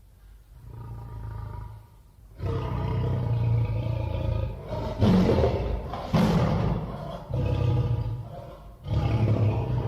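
Cave lion sound effect: a big cat roaring. A quieter low growl comes first, then from about two and a half seconds in a long run of loud, deep roars broken by short gaps.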